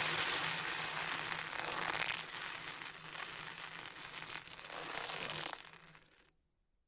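Ocean drum rolled so the beads inside wash across the head, making a surf-like hiss that swells about two seconds in, then fades and stops a little after six seconds.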